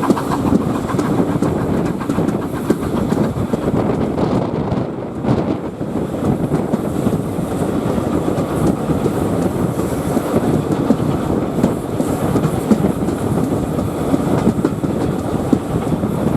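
Steam-hauled passenger train running along the track: a steady rumble and rattle of coaches, with the clickety-clack of wheels on the rails.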